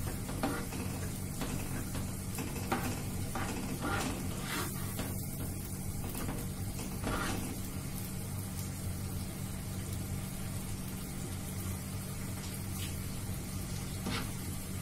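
Chopped tomato and ginger-garlic paste sizzling in butter in a non-stick frying pan while a spatula stirs it, with scattered short scrapes and taps of the spatula on the pan. A steady low hum runs underneath.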